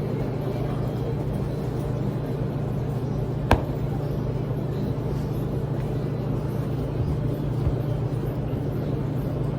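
Steady low mechanical hum, with a single sharp click about three and a half seconds in.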